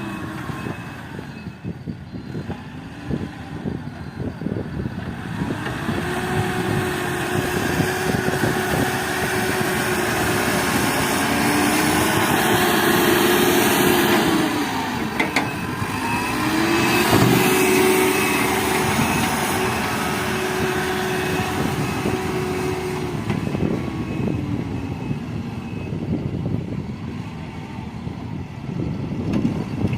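JCB backhoe loader's diesel engine running and being revved up and down several times as the machine works, louder around the middle, with a couple of brief knocks.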